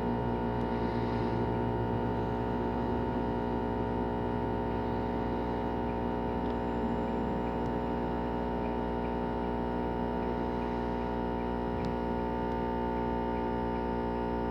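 Steady hum of an idling engine, even and unchanging, with several fixed tones held throughout.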